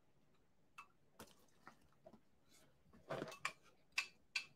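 A person chewing breakfast cereal close to the microphone: faint crunches, becoming sharper and more frequent, about two a second, after about three seconds.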